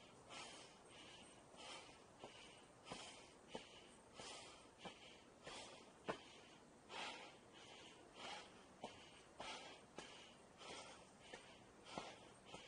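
A person climbing stairs and breathing hard, a soft breath about every half second. Footsteps land on the steps as sharp taps about every two-thirds of a second.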